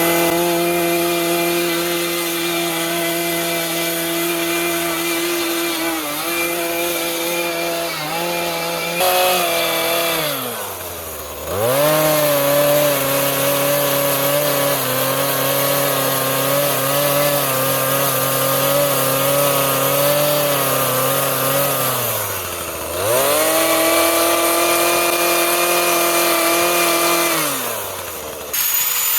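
Chainsaw running at high revs as it carves white cedar. About 10 seconds in and again about 22 seconds in, the throttle is eased off so the pitch drops, then the saw revs straight back up; it drops off again near the end.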